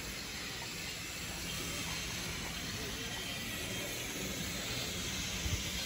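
Steady hiss of steam from a steam locomotive standing at the platform, with faint voices in the background.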